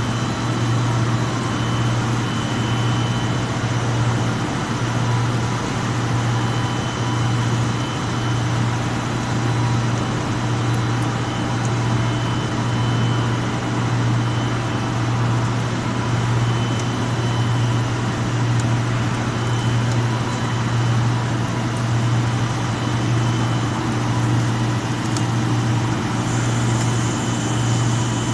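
Copper tube welding and corrugation line running: a steady low machine hum with a faint high-pitched whine over a constant mechanical noise.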